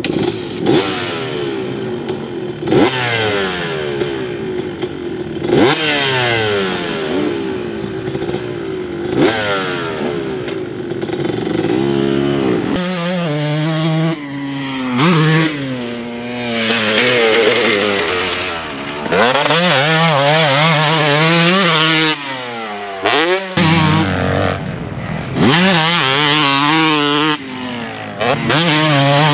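Honda CR250 single-cylinder two-stroke dirt bike engine ridden hard: in the first half the revs climb and drop again and again as the rider accelerates and shifts up through the gears. After that they swell up and down quickly with the throttle, and the engine is cut off sharply once, about two-thirds of the way in.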